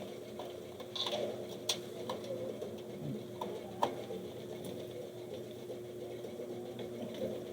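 A few light clicks and taps from small objects being handled on a workbench, over a steady low hum.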